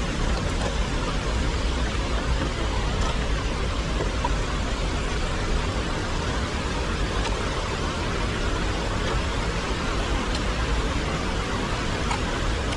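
Heavy rain falling on an umbrella, with a rain-swollen stream rushing alongside. A steady, even hiss over a low rumble.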